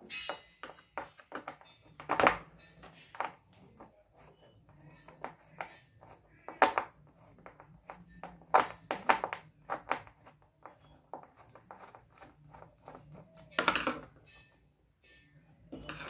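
Irregular clicks, scrapes and knocks of a small screwdriver turning a screw in the plastic casing of a digital kitchen scale, with a few louder knocks.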